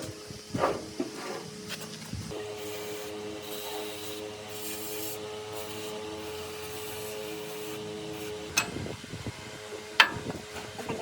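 Workshop handling sounds: scraping and knocks, then a steady humming tone like a small motor running for about six seconds, then two sharp clicks.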